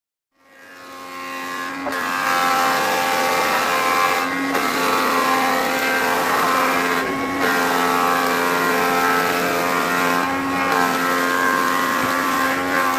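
Home-built multi-head wood planing machine running under load as a timber beam is fed through it, its motor giving a steady hum and whine over the hiss of the cutters. The sound rises over the first two seconds.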